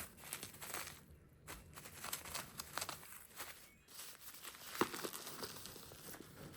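Packaging being handled: crinkling and rustling with scattered small clicks and knocks, the sharpest click a little under five seconds in.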